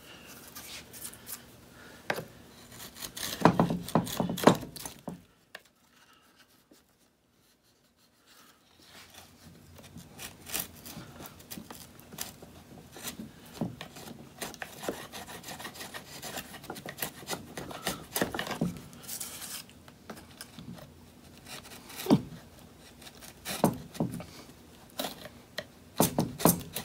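Wood chisel pushed by hand, paring and scraping old wood out of a chair frame rail in irregular strokes, with a pause of a few seconds about five seconds in. It is cutting out a recess for a hardwood splice patch.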